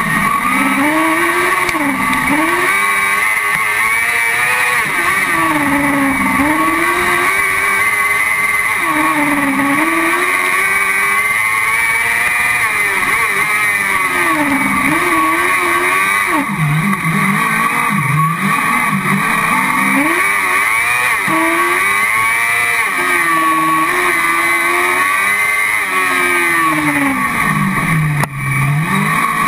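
Car-cross buggy's motorcycle engine heard from the cockpit on a lap, revving up and easing off again and again through the corners, dropping lowest twice, about halfway through and near the end.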